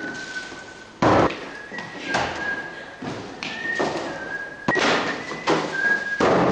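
A door banging shut and several more heavy thuds, the loudest about a second in. Between them a thin, high, steady tone is held in short stretches.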